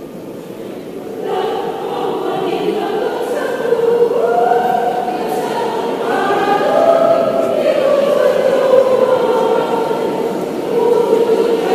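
Women's choir singing together, coming in about a second in.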